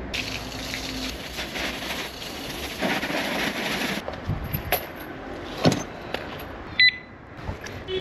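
Water spraying from a garden hose onto the alarm lock and chain as a test of its IP55 water resistance, a steady hiss that cuts off about four seconds in. Then a few clicks and knocks as the wet lock is handled, and a brief high beep near the end.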